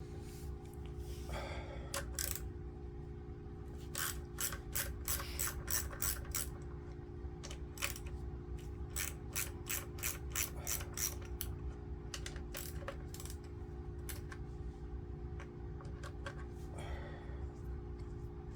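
Socket ratchet clicking in several runs of quick clicks as fasteners are undone on a BSA A65 primary side, over a steady low hum.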